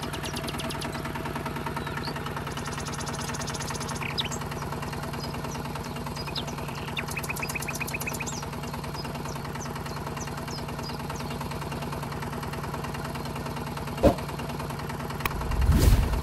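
Tractor engine running steadily at a low, even pitch, with faint bird chirps over it. A sharp click comes about 14 seconds in and a louder low thump near the end.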